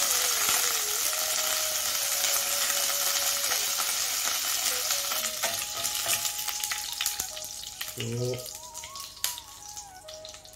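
Curry leaves, dry red chillies and cloves sizzling in hot oil in a stainless steel pan while being stirred with a wooden spatula: the tempering stage of an Indian curry. The sizzle is loudest at first and dies down steadily as the leaves fry, with a few sharp ticks of the spatula near the end.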